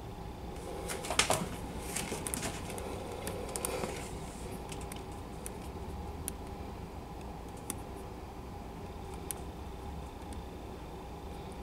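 Distant front-loader garbage truck running steadily, with a burst of sharp clanks and rattles about a second in and scattered single clanks after, as the raised container is emptied into the hopper.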